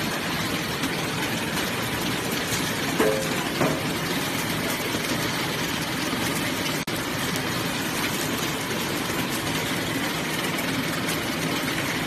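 Paper drinking straw counting and packing machine running with a steady mechanical noise, with two short sharp sounds about three seconds in.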